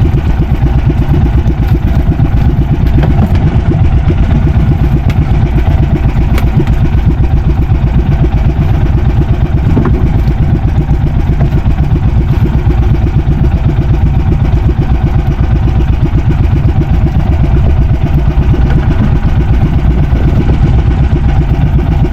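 Fishing boat's engine running steadily at a constant speed, a loud, fast, even chugging with no change in pace.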